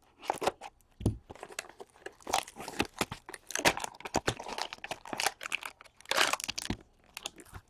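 Wrapping on a sealed box of hockey cards being torn open and crinkled: irregular crackling and ripping with a few sharper snaps.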